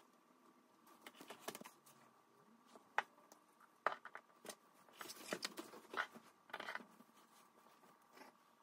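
Leather and cotton fabric pieces being handled and laid down on a cutting mat and cardboard template: rustling and scuffing, with two sharp taps about three and four seconds in and a busier stretch of handling a little later. A faint steady tone runs underneath.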